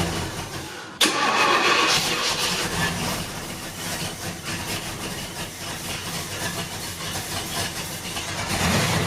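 A 1974 Pontiac Firebird's engine cranking over on the starter without catching. The starter stops briefly just before a second in, then cranks on for several seconds more. The car has sat unused for a long time and is hard to start.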